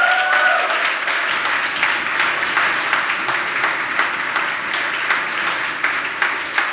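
Audience applause: many people clapping steadily in a large hall, easing off slightly near the end.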